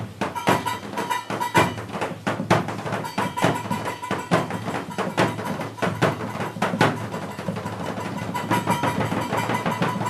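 Several instruments played together: quick, irregular knocking strikes with a steady high note held through most of it.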